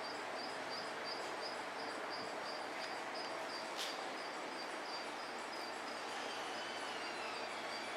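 Steady background hiss of room noise, with one short click about four seconds in.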